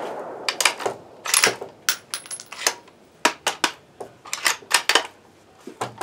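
The bolt of a Savage Axis bolt-action rifle in 6.5 Creedmoor being worked after a shot, a quick run of sharp metallic clicks and clacks as the spent case is ejected and the next round is chambered from a 3D-printed magazine. The echo of the shot fades away at the start.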